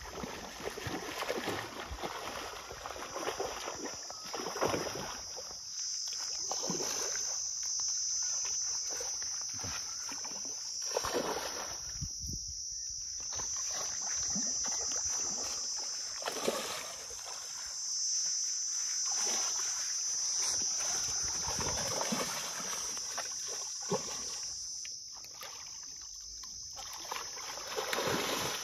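Water splashing and sloshing as a hooked fish thrashes at the surface and a man wades through the water, with a louder splash near the end as the fish is dragged into the shallows. A steady high insect buzz runs underneath.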